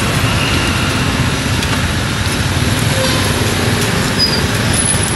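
Steady rumble of road traffic on a busy street, with a few faint short high chirps near the end.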